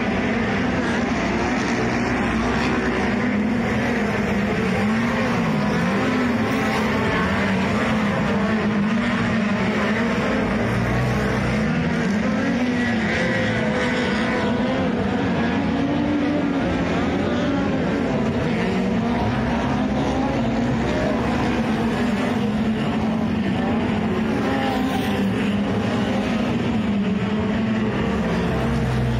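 Several dirt-track speedway race cars lapping an oval, their engines running flat out without a break. The engine pitch rises and falls repeatedly as the cars circle the track.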